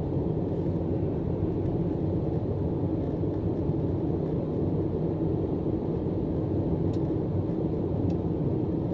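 Steady low rumble of a car driving on the highway, heard from inside the cabin: tyre, road and engine noise with no change in pitch or level.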